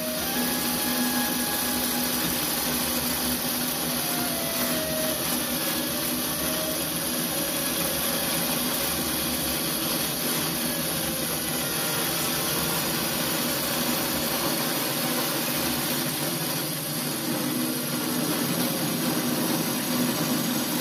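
Metal lathe running steadily, its cutting tool turning a bronze packing gland, with an even mechanical hum.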